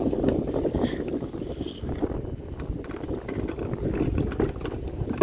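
Strong, gusting wind rumbling on the microphone, with the faint knocks and splashes of a small wooden boat on floodwater underneath.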